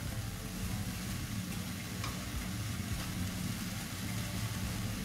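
Steady low mechanical hum with a faint hiss in a kitchen, with one small click about two seconds in.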